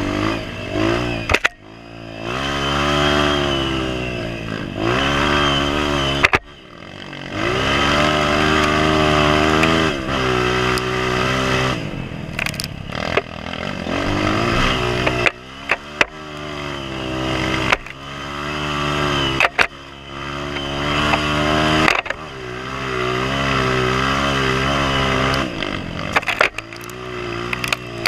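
Honda CRF230F dirt bike's single-cylinder four-stroke engine being ridden, revving up and easing off every few seconds, with the pitch climbing under throttle. Short knocks and clatter come from the bike over the rough ground.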